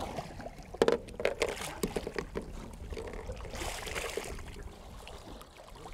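Water splashing as a barramundi thrashes at the surface while held by the jaw and let go, with several sharp splashes about a second in and a longer wash of water a little past the middle.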